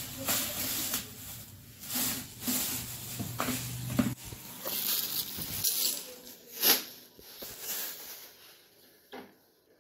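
Thin plastic bag crinkling and rustling in a run of short handfuls as it is pulled off a new motorcycle helmet. The loudest crinkle comes about two-thirds of the way through, and the rustles turn faint near the end.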